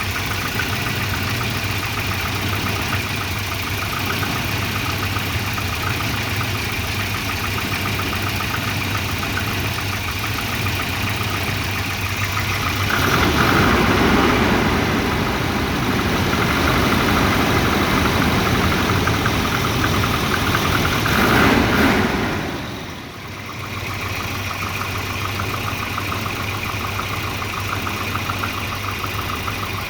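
Volvo 240 engine idling roughly, a symptom of a failing exhaust O2 sensor. The sound swells louder for several seconds midway, then dips sharply before settling back.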